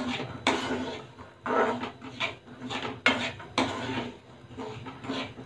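Steel spoon scraping and stirring peanuts through hot salt in a kadhai during dry roasting, in a series of irregular gritty scraping strokes with the peanuts and salt rattling against the pan.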